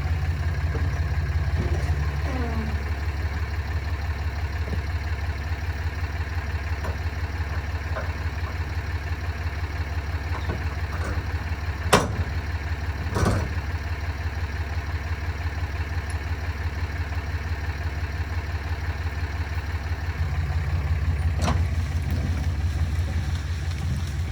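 Diesel engine of a Bobcat T190 skid steer running steadily with a low, even pulse, a little louder in the first couple of seconds and again near the end. Two sharp knocks sound about 12 and 13 seconds in.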